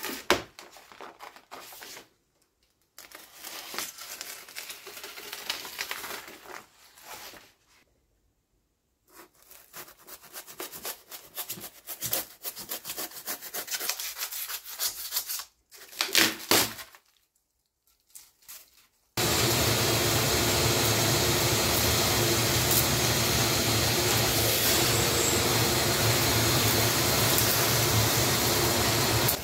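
A knife scraping and cutting along the edge of a white masonry block in short bouts, with a few sharper strokes. Then, about two-thirds of the way in, a vacuum cleaner switches on suddenly and runs loud and steady, sucking up the debris.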